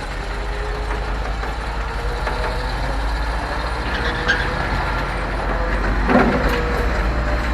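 GMC C7000 AWD dump truck's engine running as the truck drives, heard from inside the cab as a steady deep rumble that grows slowly louder.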